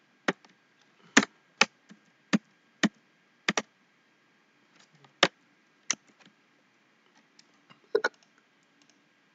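Irregular sharp clicks of a computer mouse and keyboard, about a dozen in all, with short gaps between them and a longer pause in the middle.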